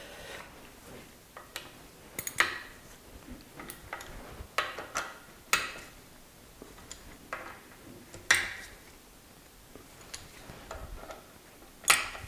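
Irregular light metallic clicks and clinks of an Allen key working socket cap screws into a steel cover plate, the loudest about eight seconds in and again near the end.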